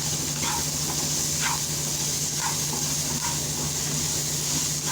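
Chopped onion sizzling steadily in hot oil in a pan on a low flame, with a few short sounds about a second apart over the sizzle.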